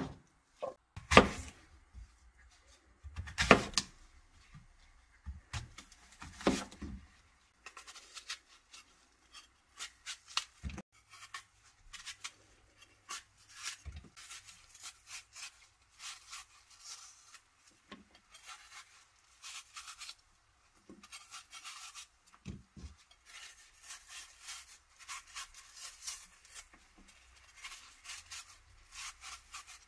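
Kitchen knife working apple quarters on a plastic cutting board: a few sharp knocks in the first seven seconds, then many short scraping strokes as the blade cuts out the cores and pares off the peel.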